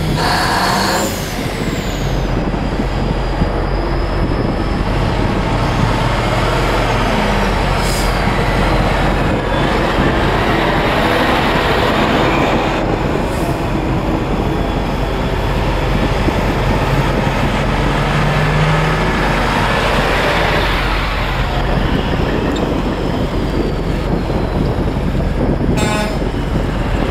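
Vintage diesel semi-truck tractors driving past one after another, their engines running and pulling away. A horn blasts about a second in and again near the end.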